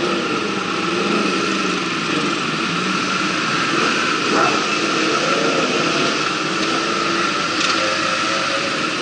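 Sport motorcycle engines running at low revs, their pitch wavering as throttles open and close, over a steady hiss and a steady high tone.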